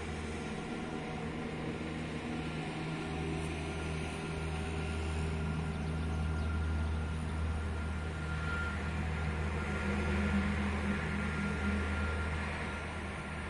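A steady low rumble with a faint hum and a hiss above it, swelling slightly in the middle and easing off near the end.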